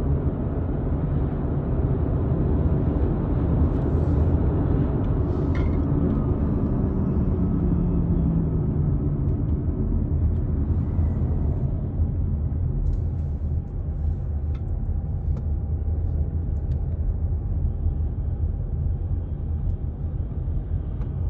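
Car on the highway heard from inside the cabin: a steady low rumble of road and engine noise.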